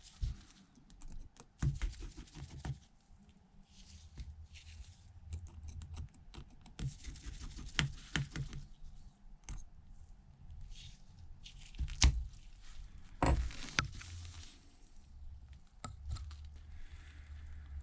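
Irregular small clicks, taps and scrapes of precision tools such as screwdrivers and tweezers working on a smartphone's screen assembly, with a few sharper clicks about twelve and thirteen seconds in.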